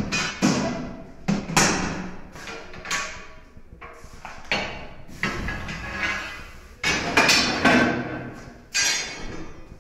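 An iron hook clanking and scraping against the cast-iron fittings of a wood-fired brick bread oven as the baker removes the gueulard, the fire vent that heated the refractory bricks. It is a string of sharp metallic knocks at irregular intervals, several of them ringing briefly.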